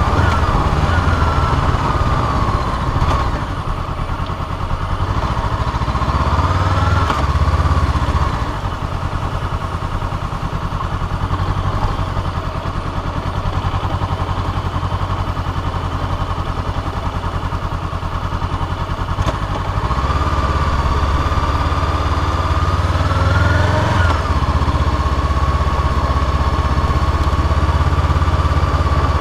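Honda CBR500R's parallel-twin engine running at low revs during slow riding. Its pitch rises briefly a few times as it accelerates, and it pulls more strongly and steadily over the last third.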